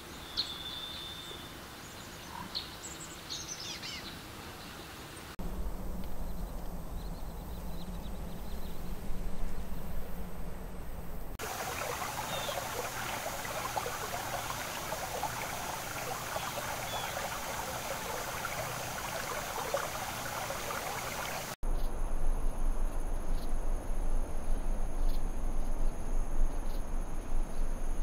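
Outdoor nature ambience that changes abruptly three times: a few high bird chirps, then a low steady hum, then a dense crackling chorus, and last a steady high-pitched insect drone with faint ticks.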